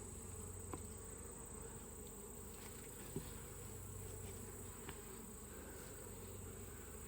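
Honeybees buzzing faintly and steadily around an opened hive during an inspection, with a few small clicks.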